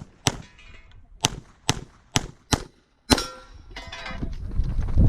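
STI pistol in .40 S&W firing a string of shots: one just after the start, four about half a second apart from about a second in, and one more about three seconds in, with metallic ringing after some shots from steel targets being hit.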